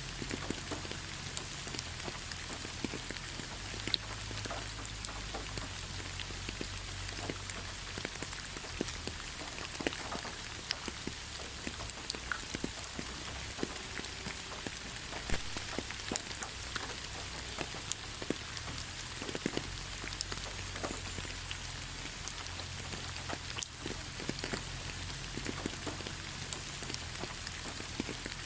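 Steady gentle rain with scattered sharp drops pattering on a surface.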